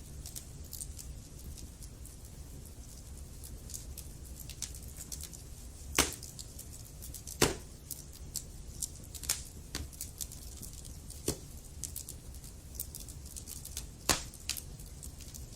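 Wood fire burning in a fireplace, with a steady low rumble and frequent small crackles; sharp pops about six seconds in, again a second and a half later, and near the end.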